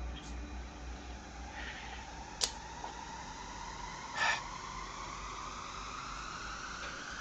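Drama soundtrack: a faint tone slowly rising in pitch, with a sharp click about two and a half seconds in and a brief noisy burst about four seconds in.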